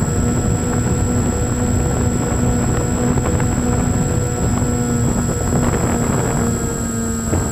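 RC model airplane's motor and propeller running steadily, heard from a camera mounted on the plane, with a steady hum, a high whine and the rush of wind buffeting the microphone.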